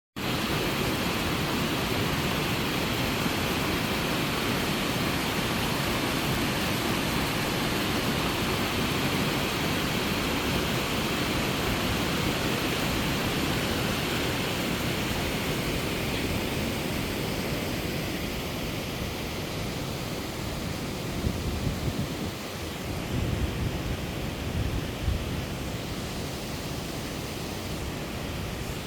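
Water of a mountain stream rushing and splashing steadily over its cascades, with a few low rumbles about three quarters of the way through.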